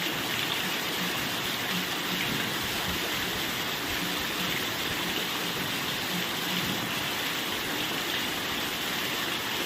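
Heavy rain pouring down, a steady even hiss with no letup.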